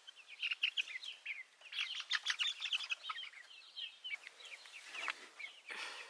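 A flock of young brown leghorn chickens cheeping: many short, high calls overlapping, densest about two seconds in. The birds are stressed by a person working inside their pen.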